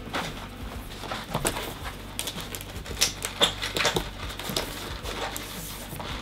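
Stiff printed cardboard panels being handled and folded, their tabs pushed into place: irregular rustles, scrapes and crisp taps, busiest in the middle.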